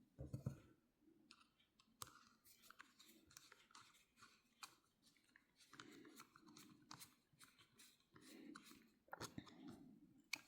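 Faint, scattered small clicks and ticks of a tiny screw being handled and driven with a screwdriver into the side plate of a fishing reel, with soft handling rustles between.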